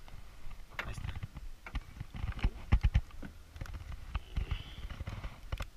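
A quick, irregular run of clicks and knocks, several close together and loudest about three seconds in.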